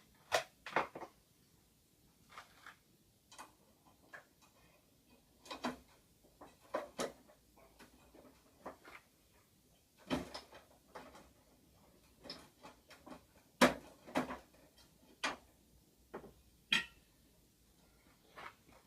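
Scattered, irregular clicks and knocks of a fluorescent light fitting being handled as a fluorescent tube is taken out and an LED replacement tube fitted in its place.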